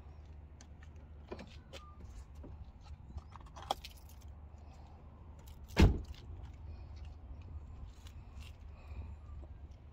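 Light clinks and rattles of things being handled, with one heavy thud about six seconds in, over a low steady hum.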